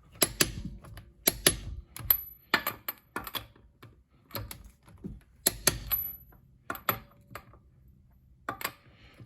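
Steel impact sockets and swivel adapters clinking and clacking as they are handled and set down: irregular sharp knocks, a few with a brief high metallic ring.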